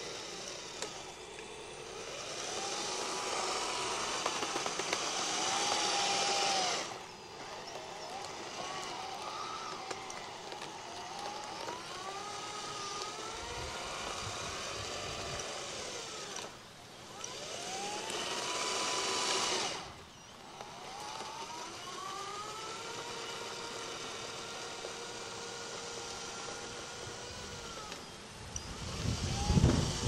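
Remote-controlled Liebherr 634 crawler loader model working sand, its electric motors whining and gliding up and down in pitch as it drives and maneuvers. Twice a louder hiss comes in for a few seconds, and a brief low thump sounds near the end.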